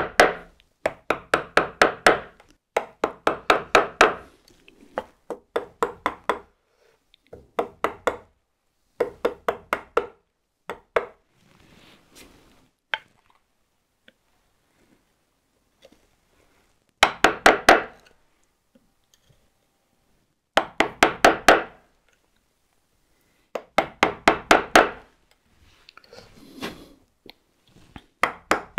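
Mallet striking the handle of a wood chisel in quick bursts of light, rapid blows, several rounds separated by pauses. The chisel is chopping a small notch into the wood just short of a marking-gauge line.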